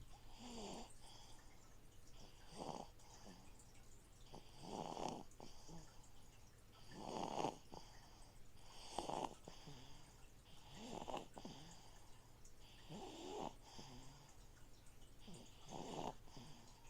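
Soft snoring, one snoring breath about every two seconds, over the steady low hum of an aquarium filter circulating water.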